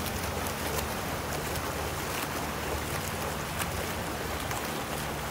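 Open water swimmers' front-crawl strokes splashing in lake water, many short splashes over a steady wash of moving water. Underneath runs a steady low motor hum.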